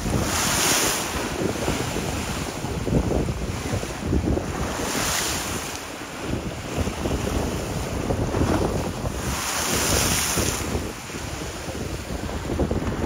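Wind buffeting the microphone over choppy lake waves. Three louder hissing surges of breaking water come about a second in, about five seconds in and around ten seconds in.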